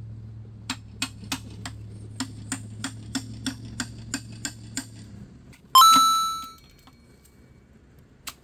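Claw hammer tapping a chisel against the steel shell of an electric water heater, about three quick metallic strikes a second for around four seconds. Then comes one hard metallic hit that rings out for about a second, and a single click near the end.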